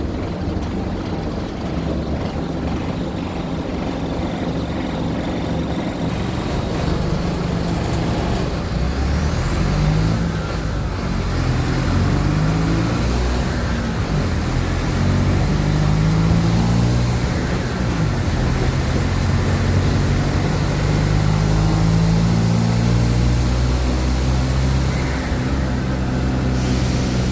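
Mercedes-Benz OF-1722M city bus diesel engine under way, running steadily at first and then, from about a third of the way in, revving up and dropping back several times as it accelerates through the gears.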